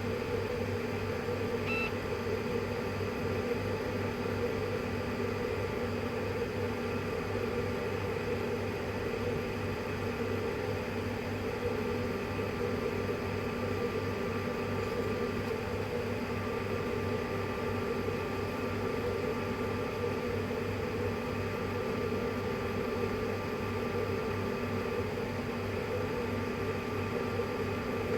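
Steady mechanical hum with a thin whine from a running 3D printer, and a brief high beep about two seconds in and again at the end.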